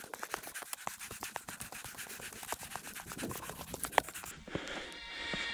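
Footsteps crunching and scuffing on gritty granite steps during a fast climb: a dense, irregular run of scratchy clicks with rubbing noise, and one sharper click about four seconds in.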